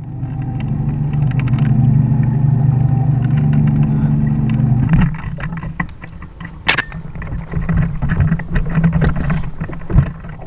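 Boat motor running with a steady hum, cutting off about five seconds in, followed by irregular knocks and clatter, with one sharp crack and a later thump.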